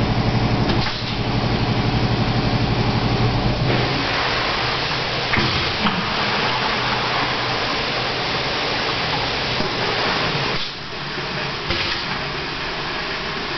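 Crandall FA1/25PTX sub-surface pail filler running through a fill cycle. A pulsing mechanical hum lasts about the first four seconds. Then a steady rushing noise runs while the fill tube sits down in the pail, with a few sharp clicks along the way; the noise eases slightly near the end.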